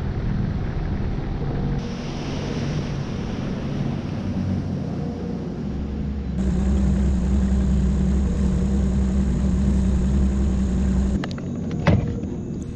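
Engine running steadily, a low droning hum with a noisy rush over it; the sound shifts abruptly a couple of times, and near the end it drops and there is a sharp click.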